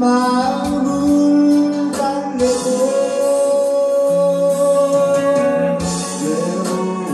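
A man singing a slow Korean pop ballad live with electric guitar accompaniment, holding long drawn-out notes.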